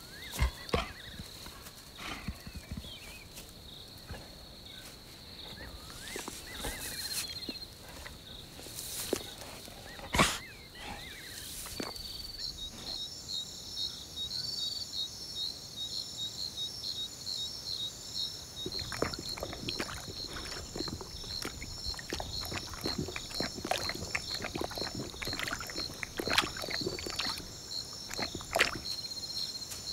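Night insects calling: a steady high, thin drone, joined about halfway through by a denser chorus of evenly pulsing cricket-like chirps, with scattered soft clicks throughout.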